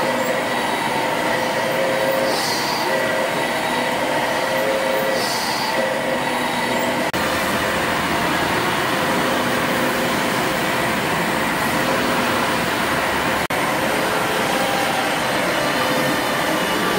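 Running stationary steam engines: a steady mechanical clatter and hiss with a few held tones, and short bursts of higher hiss about every three seconds in the first part. The sound changes abruptly twice, about seven and thirteen and a half seconds in, as different engines are heard.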